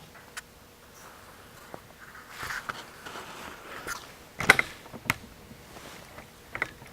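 Handling sounds of pinball-machine pin skate parts being set down: a soft rustle, then a few sharp clicks and knocks, the loudest about four and a half seconds in and another just after five seconds.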